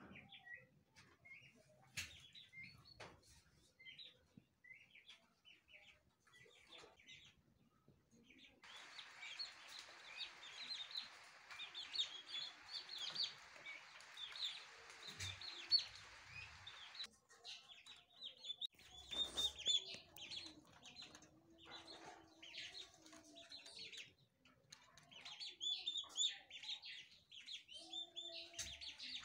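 Turkey poults peeping: many short, high chirps repeating over and over. A steady hiss sits behind them for several seconds in the middle, and a few lower, longer calls come in near the end.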